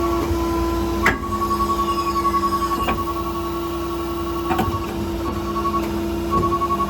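Service truck's PTO-driven hydraulic system running off its 6.7 Cummins diesel: a steady whine over the engine's low hum, with a fast-pulsing beep that drops out briefly a few times, and several sharp clicks and knocks.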